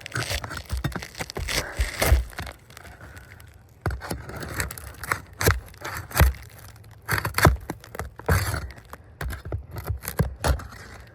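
Steel flat bar scraping and prying under asphalt roof shingles to work the roofing nails loose. An irregular run of scrapes with sharp knocks.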